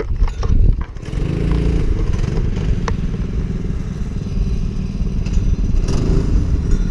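Go-kart's 200cc single engine running steadily at idle, a dense rapid low putter, which sets in about a second in after some knocks and clatter from the helmet camera being handled.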